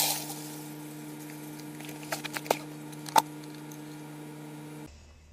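Granular fertilizer pouring from a bag into a plastic bucket: a rush of pellets at the start that thins out over about a second. A few sharp clicks and knocks follow, the wire bucket handle and scale hook being handled, over a steady low hum.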